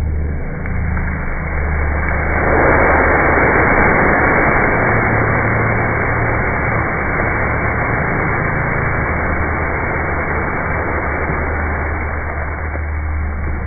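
Loud rushing roar of a fireball erupting from a wood fire, slowed down, swelling about two and a half seconds in and holding steady over a low drone.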